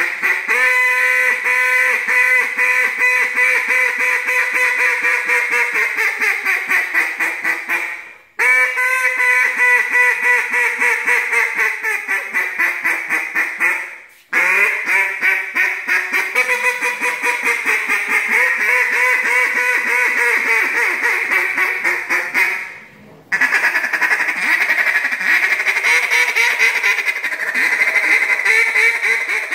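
Acrylic RNT Daisy Cutter Diablo duck call blown in long runs of rapid quacking and chatter, four strings broken by short pauses for breath, the first ones dropping in pitch toward their ends.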